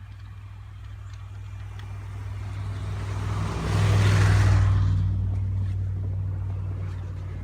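A car passing on a snow-covered road. Its low engine hum and tyre noise build to a peak about four seconds in, then fade.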